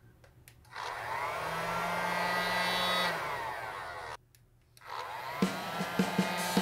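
Large construction heat gun switched on, its fan motor spinning up with a rising whine and running for about three seconds, then cut off and started again with a fresh rising whine. About a second after the restart, sharp taps begin, about three a second, over the running heat gun.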